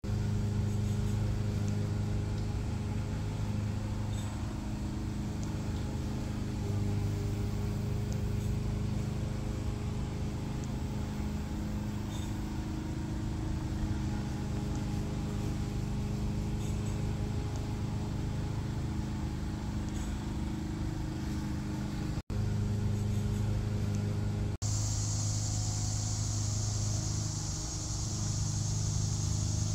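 Steady low mechanical hum made of several held tones, engine-like. It cuts out for an instant about 22 seconds in, and a high hiss joins it for the last few seconds.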